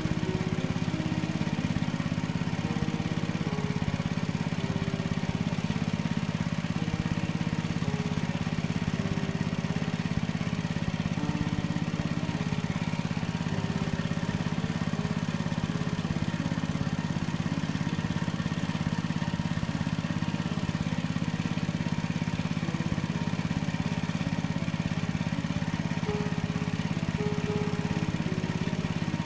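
Small engine of a water pump running steadily at constant speed, a continuous low drone.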